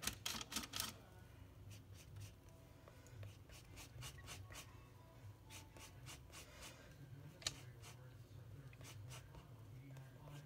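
Oil paint being mixed and laid down with a palette knife on a palette: faint, irregular scrapes and light taps, with one sharper tap about seven and a half seconds in.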